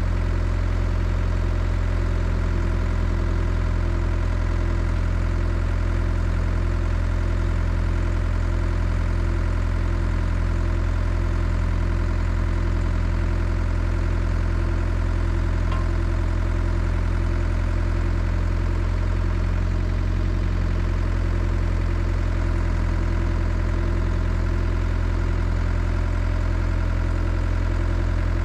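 Cat 307SSR excavator's diesel engine idling steadily, with an even low throb.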